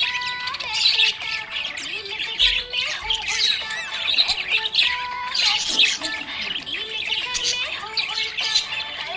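Budgerigars chirping, squawking and warbling without a break, many short calls overlapping.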